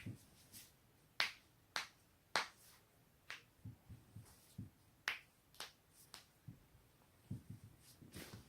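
Human joints cracking: a series of about ten sharp, short pops at irregular intervals, with a few soft low thuds between them.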